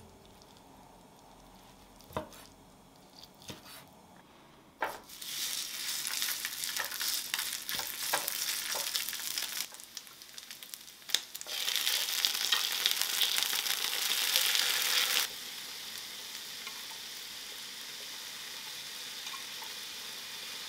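Rice frying on a hot electric hot plate, a dense crackling sizzle that sets in about five seconds in. It grows louder in the middle and settles to a quieter, steady sizzle near the end. A few light knocks come before it.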